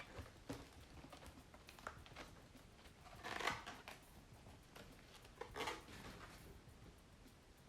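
Quiet handling sounds while unboxing a laptop: light taps and clicks, with a louder rustle of packaging about three and a half seconds in and a shorter one just before six seconds.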